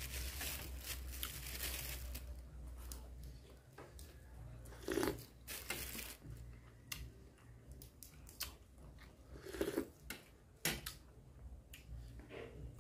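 Close-up chewing and biting of boiled beef tendon with fresh greens, wet and crunchy mouth sounds. A few sharp clinks of a spoon on the metal tray, about five seconds in and again near ten seconds.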